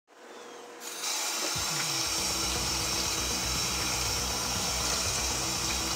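Kitchen faucet running in a stainless steel sink, water splashing onto raw chicken being rinsed: a steady hiss that fades in over the first second. Low background music comes in underneath about a second and a half in.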